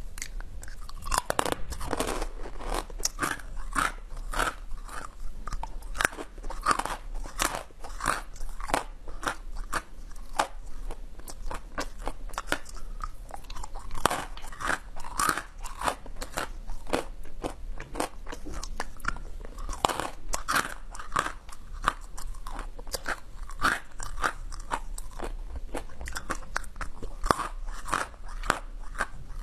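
Close-miked crunching and chewing of small blue-and-white flower-shaped candy pieces: a continuous run of crisp crunches and bites at an uneven pace.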